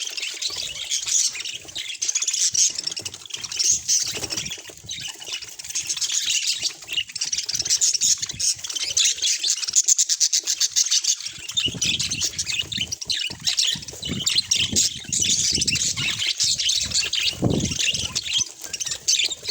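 Budgerigars chattering and warbling continuously, a dense run of rapid high-pitched chirps and squawks, with low rustling in the second half.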